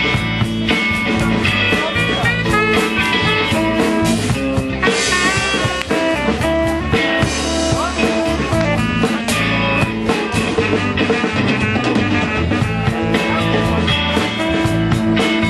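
Live rock band playing: guitars over a drum kit with a steady beat and a moving bass line.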